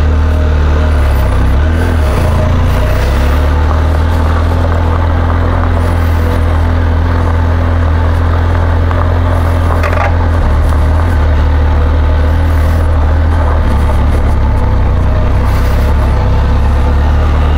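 Benelli TRK 502X motorcycle's parallel-twin engine running at steady revs, a loud, even low drone that holds unchanged throughout.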